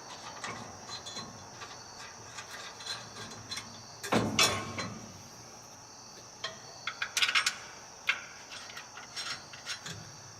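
Metal clinks, clicks and knocks of a steel steering brace bar and its bolts being handled and fitted against a truck frame, with one louder knock about four seconds in and quick runs of clicks later on.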